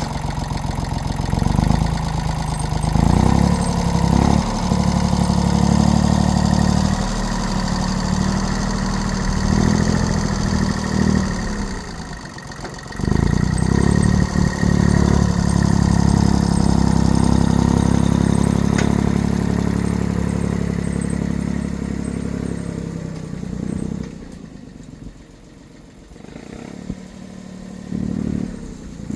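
Engine of a Jansen walking mini excavator running and revving up and down repeatedly. There is a short dip about twelve seconds in, and a quieter spell near the end before it picks up again.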